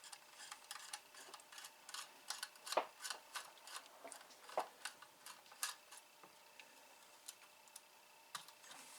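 Irregular small clicks and ticks of a screwdriver working the front screws of a Hakko FR-301 desoldering gun's plastic housing, with a pause of about two seconds before the clicks start again near the end.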